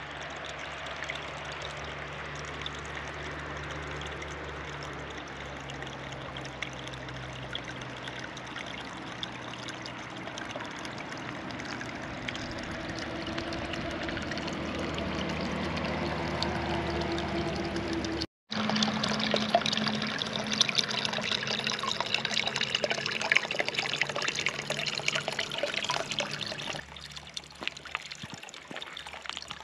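Spring water trickling and splashing steadily. It breaks off for a moment about two-thirds of the way through, then goes on brighter, with more small splashes.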